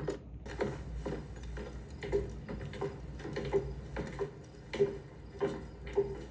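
Fine-tip pen writing small lettering on paper: a series of short, irregular taps and scratches as each stroke is made.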